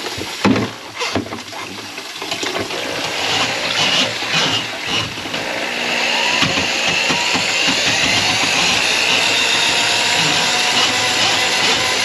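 Water sounds at a clogged kitchen sink with a few knocks, then about six seconds in a small motor starts and runs steadily to the end.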